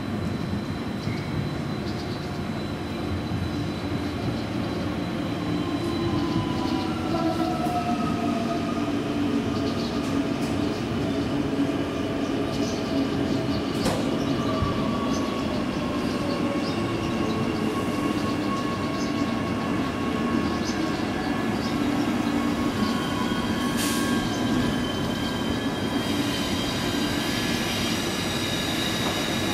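Queensland Rail electric suburban train running into a station and slowing: a steady rumble with motor whine in several tones that fall slowly as it brakes. High steady squeals of wheels and brakes come in near the end as it draws to a stop.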